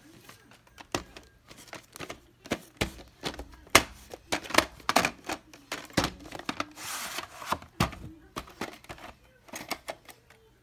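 Plastic clicks and clacks of a VHS cassette and its case being handled, with a brief rustle about seven seconds in.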